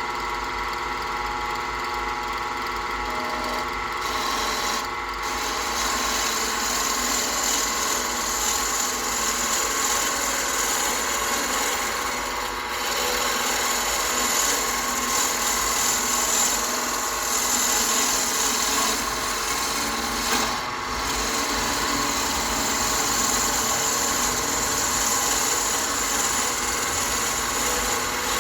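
Wood lathe running with a spinning pen blank being worked, a steady scraping hiss over the motor's hum, easing off briefly a few times.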